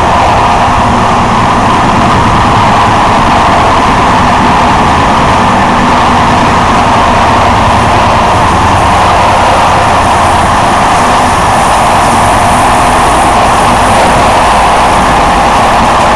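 Train running steadily along the line, heard from inside the driver's cab: a loud, even rumble and rushing noise with no breaks. A faint high whine comes in about halfway through.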